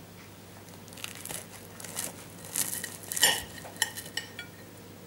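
Knife cutting through a baked puff-pastry apple rose: the crisp pastry crackles and crunches in several bursts, and about three seconds in the blade clinks against the ceramic plate with a short ring, the loudest moment.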